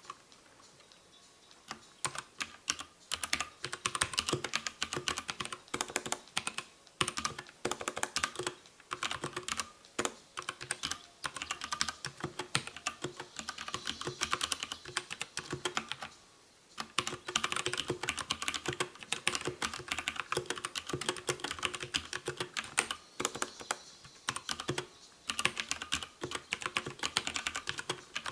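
Fast typing on two compact mechanical keyboards with brown tactile switches, a Dierya DK63 and a Gramr with Cherry MX Browns, side by side. Dense key clacks start about two seconds in, with a brief pause about halfway through.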